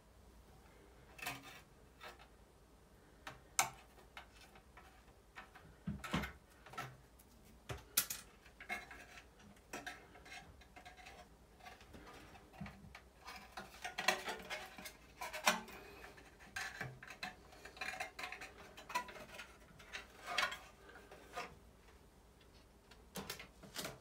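Irregular light clicks, taps and metallic clinks of a thin sheet-metal exhaust-fan housing and its wiring being handled and worked loose by hand.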